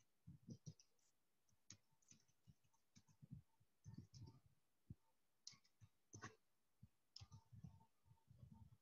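Faint computer keyboard typing: irregular keystroke clicks, a few a second, with brief pauses.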